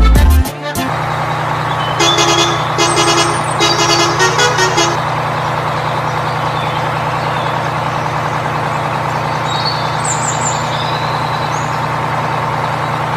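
Heavy vehicle engine running steadily, with a series of short horn toots between about two and five seconds in. A burst of music cuts off at the very start.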